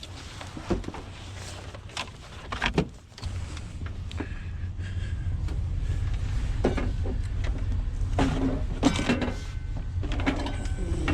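Clicks and clunks of scrap electronics being handled as cords are cut off. From about three seconds in, a steady low rumble runs underneath, with more knocks over it.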